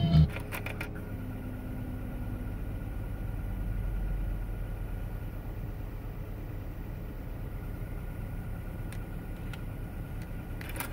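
Car engine idling, heard inside the cabin as a steady low hum. Just after the start and again near the end come a few clicks from the head unit's buttons and cassette mechanism as the tape deck switches into rewind.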